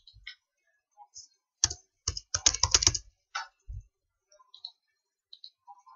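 Typing on a computer keyboard: a quick run of about a dozen keystrokes between about one and a half and three seconds in, with a few single clicks around it.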